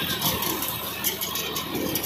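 John Deere tractor's diesel engine running under load as a tractor-mounted cotton stalk cutter chews through standing cotton plants, with rattling and frequent sharp cracks.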